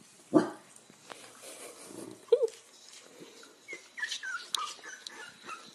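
Corgi puppies whimpering and squeaking. A sudden louder sound comes about half a second in, a short yip a little over two seconds in, and high, falling squeaks follow near the end.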